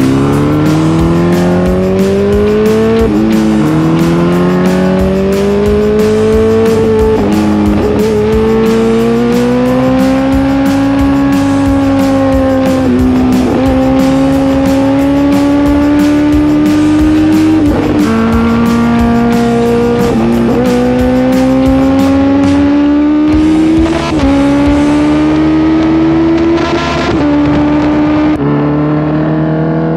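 Sport motorcycle engine under hard acceleration. Its pitch climbs through each gear and drops sharply at every shift, about every three to five seconds.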